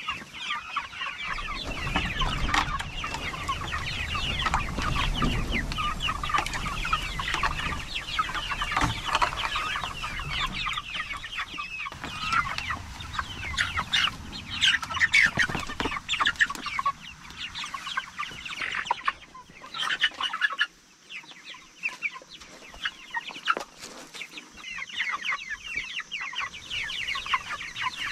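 A flock of white broiler chickens clucking continuously, many short overlapping calls at once. A low rumble runs under the clucking for the first twelve seconds or so.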